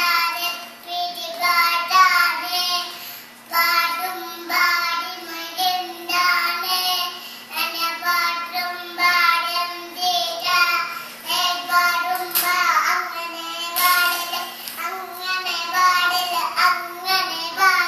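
A young child singing a song in short phrases, with brief breaths between them.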